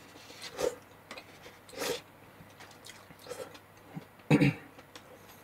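Mouth sounds of a person eating: a few short, separate noises, the loudest a brief throaty sound about four seconds in.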